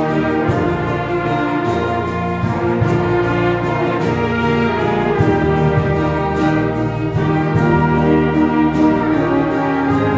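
Small orchestra of violins, brass and woodwinds playing a hymn in long held chords that change every second or two.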